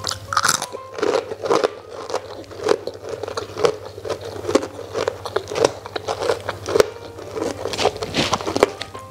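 Close-up chewing of crisp emping crackers eaten with rice by hand: irregular sharp crunches, a few a second, along with the rustle of fingers picking through the crackers.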